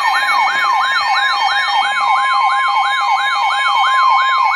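Emergency alert attention signal for a severe thunderstorm warning: a steady high alert tone with a siren-like sweep over it that falls in pitch and resets about three times a second.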